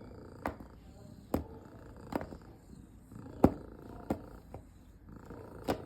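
Domestic cat purring steadily, with about half a dozen sharp clicks or taps over it, the loudest about three and a half seconds in.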